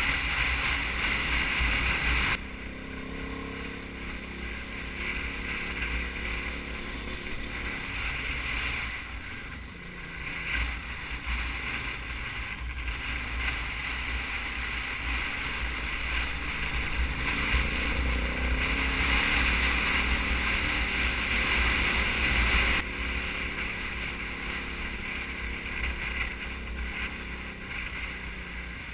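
Wind buffeting the microphone over a KTM 990 Adventure's V-twin engine running at low speed, its pitch rising and falling as the bike is ridden up a gravel road. The overall sound changes abruptly twice, about two seconds in and again a few seconds before the end.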